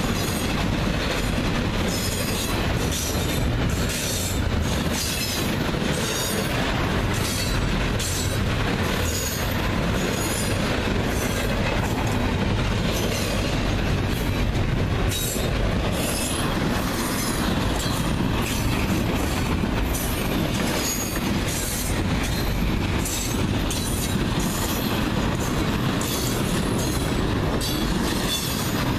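Freight train cars rolling past at a grade crossing: a steady rumble of wheels on rail with a repeated clatter of wheels over the joints.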